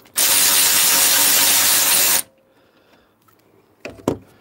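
Snap-on cordless electric ratchet running for about two seconds as it spins out a bolt on the radiator mounting bracket, starting and stopping abruptly. A couple of short clicks near the end.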